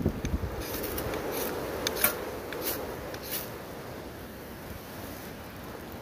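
Ferro rod struck with a steel striker, about five quick, hissing scrapes over the first three and a half seconds, showering sparks onto cotton-wool tinder to light a wood stove; a steady outdoor wind hiss continues underneath.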